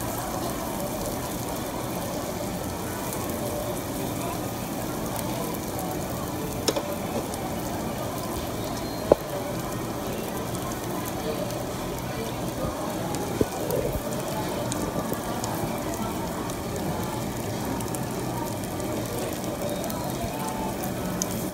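Beef sizzling steadily on a barbecue grill, with a few sharp clicks, the loudest about nine seconds in.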